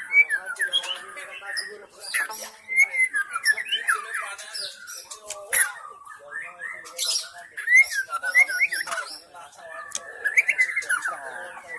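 White-rumped shama (murai batu) singing: a busy run of quick, varied whistled phrases mixed with short harsh rasping notes.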